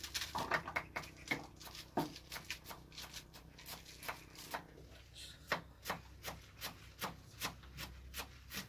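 Fresh leafy greens being picked over and torn by hand: irregular crisp snaps of stalks and rustling leaves, about two or three a second.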